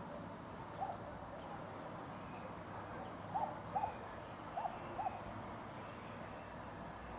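A bird calling: short whistled notes, one about a second in, then two quick pairs. A steady background hiss runs underneath.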